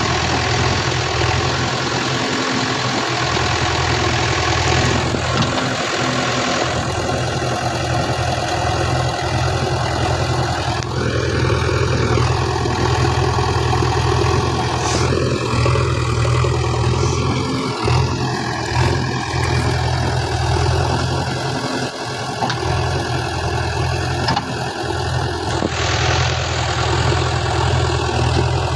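Heavy diesel engine running steadily at low speed, with a constant low drone.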